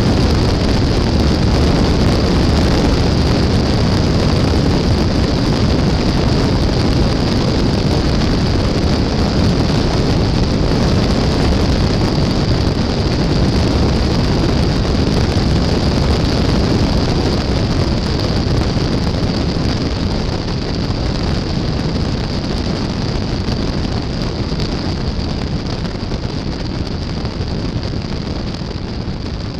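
Mooney single-engine airplane's piston engine and propeller running steadily, heard from a camera mounted outside on the tail, mixed with heavy wind noise from the airflow over the microphone. The sound gets gradually a little quieter over the second half.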